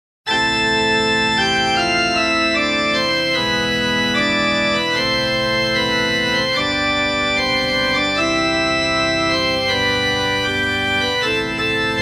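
Organ-sounding keyboard playing the intro of a heavy metal song: sustained chords that change every second or so, starting just after a moment of silence.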